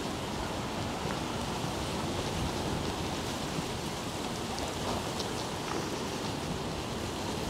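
Steady rain falling, an even hiss with a few faint ticks of single drops.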